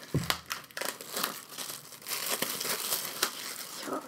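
Paper and packaging being handled close to the microphone: crinkling and rustling with a soft thump near the start.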